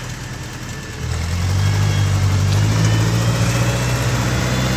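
Massey Ferguson 245 tractor engine running as the tractor is driven over gravel. It gets louder about a second in and then holds steady.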